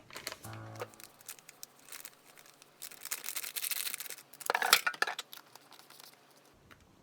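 Small handling noises in a kitchen: clicks and taps with rustling or tearing, loudest in two noisy bursts about three and four and a half seconds in. A little music runs in the first second.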